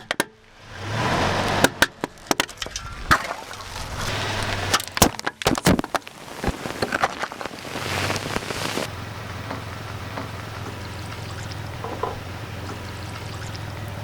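A car's tyre rolling over and crushing objects, giving a run of sharp cracks and snaps over several seconds, with the car's engine running low underneath. The cracking dies away about halfway through, leaving the steady engine hum and a single click later on.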